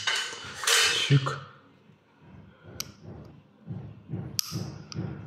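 A metal knife scraping and tapping against a plastic ceiling plinth as cotton wool is pushed into the gap along the wall: a rush of scraping at the start, then a few sharp clicks, with faint voices underneath.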